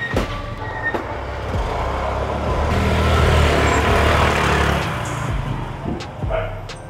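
Several motorbike engines revving and pulling away, getting louder as they pass close by about halfway through, then fading into the distance.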